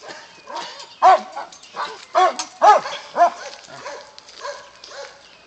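Dogs playing and barking in short, high yips, with four louder yips between about one and three and a half seconds in and fainter ones around them.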